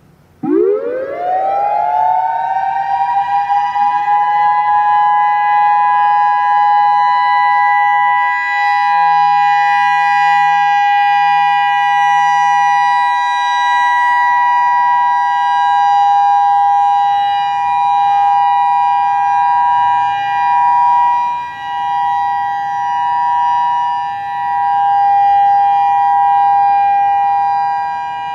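Federal Signal EOWS 612 electronic outdoor warning siren sounding the steady Alert signal. It starts with a quick rising wind-up and settles within about three seconds into a steady, loud two-note chord, which swells and dips in loudness a few times in the second half.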